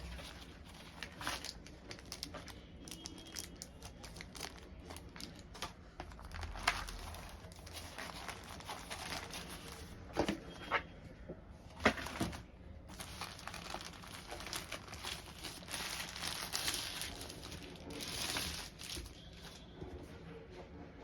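Keyboard packaging crinkling and rustling as it is unwrapped, with scattered small clicks and a few sharper knocks about a third and halfway through.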